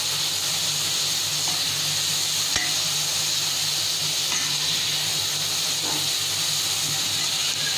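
Sliced onions sizzling steadily in hot oil in a nonstick pan, sautéing until soft, with a few light scrapes of a spatula stirring them. A low steady hum runs underneath.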